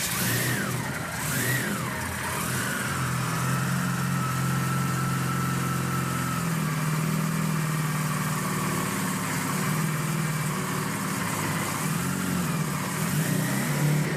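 12-rotor Wankel rotary engine running. Its pitch rises and falls in the first couple of seconds, then it settles into a steady run.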